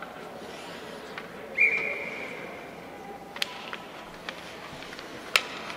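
A whistle blown once: a steady high tone held for about a second and a half. Then come sharp clacks of hockey sticks and puck on the ice as the faceoff is taken, the loudest near the end.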